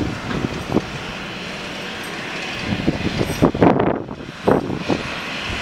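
Wind gusts buffeting the microphone over a steady jet hiss from a parked Boeing 737-300. The gusts are strongest in the middle, about three and a half to five seconds in.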